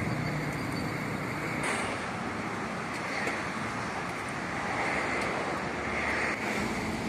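Steady outdoor background noise, with wind on the microphone and soft swells of rushing noise.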